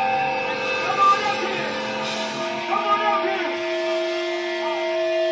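Live hardcore punk band's electric guitar notes ringing out and held, steady and without drums, with short shouted voices over them.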